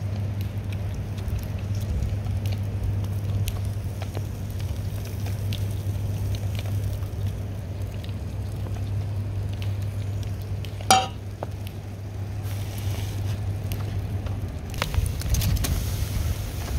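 Crayfish (spiny lobster) halves sizzling on a braai grid over coals as butter is brushed on, with small crackles over a steady low hum. A brief sharp squeak comes about two-thirds of the way through.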